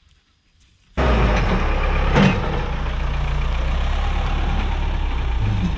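Backhoe's diesel engine running steadily, cutting in abruptly about a second in after near silence, with one sharp knock about two seconds in.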